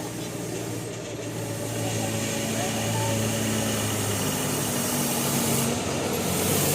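Bus engine running steadily, growing louder about two seconds in.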